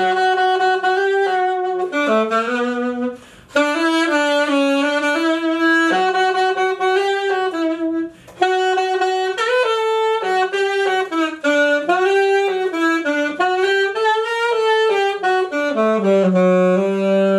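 Alto saxophone playing a solo melody in phrases, with short pauses for breath about three and a half and eight seconds in, and a long low note near the end.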